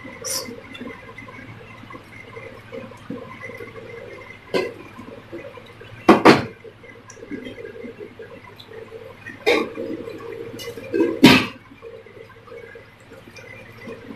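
Onion bhajia batter deep-frying in hot oil: a steady crackling sizzle, broken by five short, louder bursts of sizzle, likeliest as more batter is dropped into the oil.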